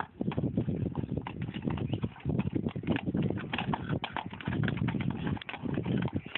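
Horses' hooves shuffling and stamping on cobbled ground as a stallion covers a mare, a dense run of knocks and scrapes.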